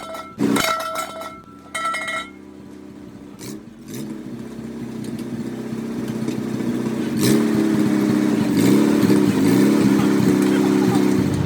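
Farmall Super C tractor's four-cylinder engine running, growing louder from about four seconds in, its pitch rising and wavering as the engine speeds up and slows. A brief snatch of music plays in the first two seconds.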